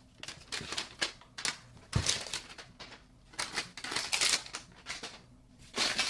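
A small cardboard mystery box and its torn clear plastic wrap being handled and pried open: irregular crinkles, crackles and sharp clicks in short bursts.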